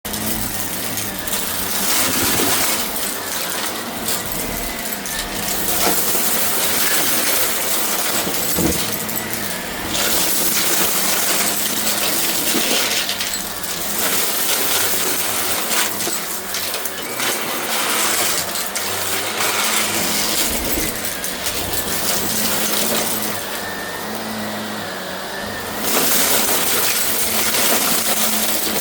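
Shark vacuum cleaner running: a steady motor hum under a rush of air, rising and falling slightly as it is pushed and pulled, with scattered sharp clicks and rattles of debris being picked up.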